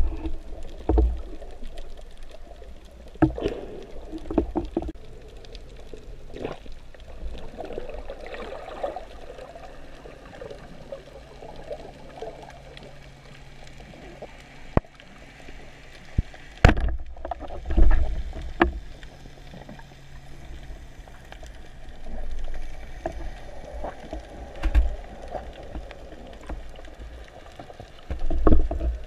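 Underwater sound picked up through a submerged camera housing: a muffled low rumble and wash of moving water, with scattered sharp clicks and knocks, the strongest a little past halfway. A faint steady low hum runs through the middle stretch.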